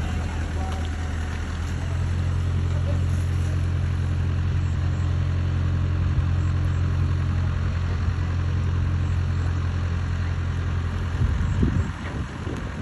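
Mini excavator engine running with a steady low drone, which grows heavier about two seconds in. Near the end there is a brief rattle and the engine then drops back to a lower level.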